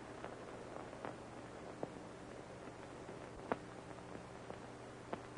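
Faint steady hiss and hum of an old film soundtrack, with a few soft clicks, one a little louder about three and a half seconds in.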